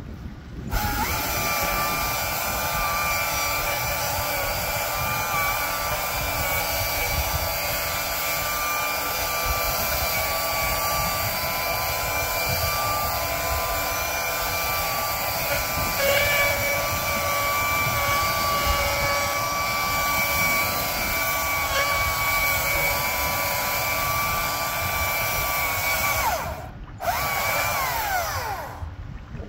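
A power tool running with a steady high whine, briefly stopping near the end, then starting again and winding down in pitch.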